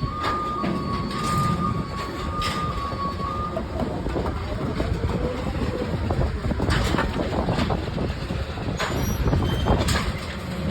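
Steady low mechanical rumble of nearby machinery, with a steady whine that stops a few seconds in and scattered sharp clicks and taps of hands working with tools and parts.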